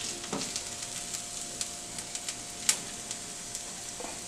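Onions frying in butter in a frying pan, sizzling faintly with scattered crackling ticks and one sharper pop a little under three seconds in, over a faint steady hum.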